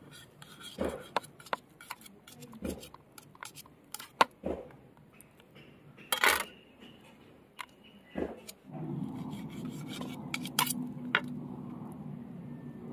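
A kitchen knife clicking, tapping and scraping against a stainless steel plate while raw chicken breast is sliced into thin fillets, in scattered irregular strikes, the loudest about four and six seconds in. A steady low hum comes in about two-thirds of the way through.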